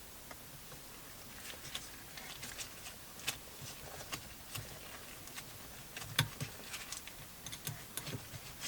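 Faint, irregular light clicks and taps of small tools and parts being handled while fitting a handbrake extension, with the sharpest tap about six seconds in.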